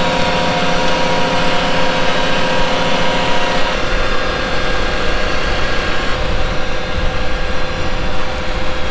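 Tractor-drawn Carbon Robotics G2 laser weeder at work, a steady mechanical drone with several held whining tones. The tones fade and the sound changes about four seconds in.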